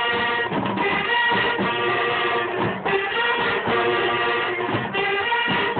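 Instrumental music with held notes that change about once a second.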